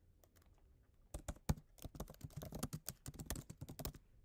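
Typing on a computer keyboard: a quick, uneven run of key clicks starting about a second in.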